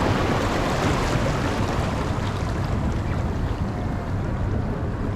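Wind buffeting the microphone over water splashing and rushing around a dragon boat as the crew brings it to a stop.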